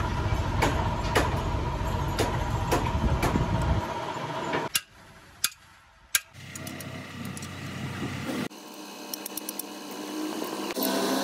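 Workshop sounds of hand tools on a truck differential. A steady low rumble carries sharp metal clicks about twice a second until it cuts off after about four seconds. A few isolated clinks follow, and later a quick run of light metal clinks as a spanner works on the differential housing.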